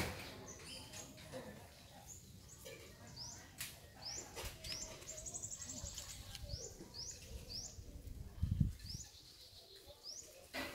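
A bird chirping over and over: short, high, rising chirps about once a second, with a brief rapid trill about halfway. A single dull low thump comes near the end.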